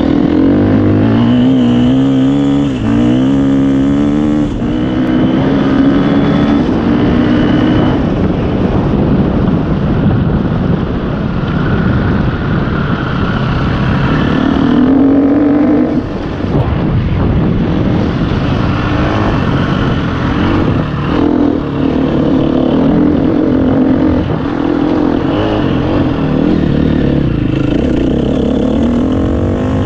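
Enduro dirt bike engine heard from on board while riding, its revs rising and falling again and again, with a brief drop about sixteen seconds in.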